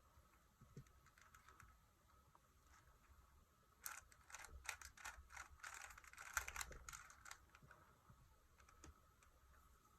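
Rubik's Cube layers being turned by hand: a quick run of soft plastic clicks and clacks for about three seconds, starting about four seconds in, as a corner–edge pair is set up and inserted.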